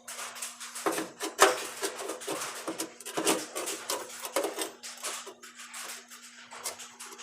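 Welder arc crackling in short, irregular bursts as rust pit holes in thin car body sheet metal are filled against a copper backer, with a steady low hum underneath.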